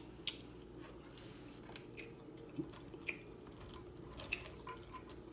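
Snow crab leg shells cracking and clicking as they are broken and picked apart by hand, an irregular series of sharp snaps about once or twice a second, with some chewing, over a low steady room hum.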